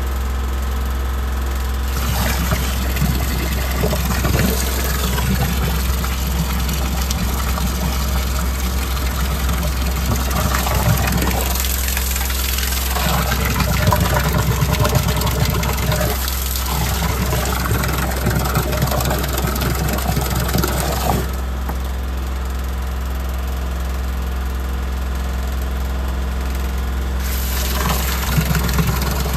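Water from a hose gushing into a blocked drain inspection chamber, flushing the standing water away. It starts about two seconds in, stops for several seconds about two-thirds of the way through, and starts again near the end. A steady engine hum runs underneath throughout.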